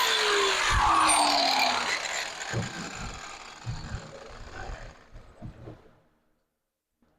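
Power tool grinding metal, then its motor winding down with a falling whine over about two seconds after release. A few light knocks and clunks follow, and the sound cuts off abruptly about six seconds in.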